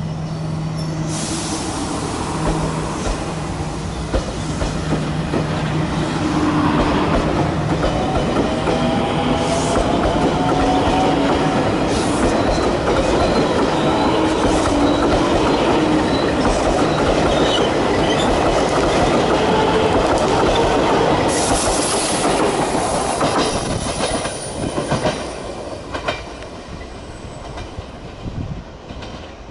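JR West 283 series limited express electric train pulling out and accelerating past: a motor whine rising in pitch over the rumble of wheels on rail, loudest in the middle. Near the end a run of sharp clacks as the last cars cross the rail joints and points, then the sound fades as the train pulls away.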